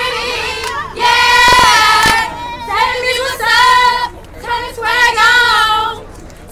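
A group of women singing a sorority chant in unison, in long held phrases broken by short pauses, with two sharp hits during the second phrase.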